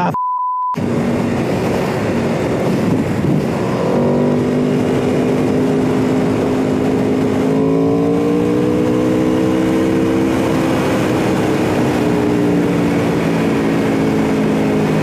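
Aprilia RSV4 RF sport bike's V4 engine pulling at freeway speed under heavy wind rush, its pitch climbing slowly for several seconds and then easing off. A short bleep tone cuts in right at the start.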